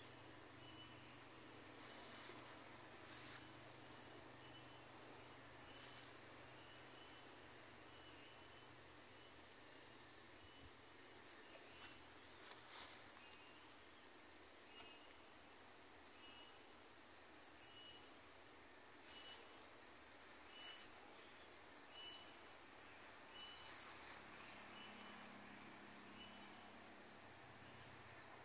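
Faint insect chorus in tropical vegetation: a steady high drone, with a short chirp repeating about once a second.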